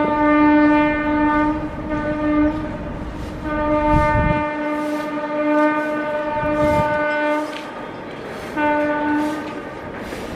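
The air horn of the Puducherry–New Delhi Superfast's locomotive sounding as the train nears the bridge: a single-pitched blast broken briefly partway through, then a long blast of about four seconds, and a short blast near the end.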